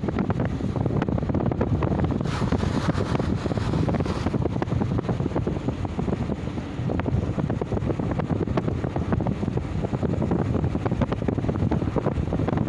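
Ocean surf roaring, a steady low rumble of breaking waves, with wind buffeting the microphone. About two seconds in, a wave crashes with a hiss that lasts about two seconds.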